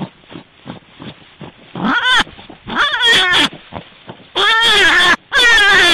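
A series of loud animal calls, about five short pitched cries that each arch up and fall in pitch, starting about two seconds in. Before them come faint clicks and rustling.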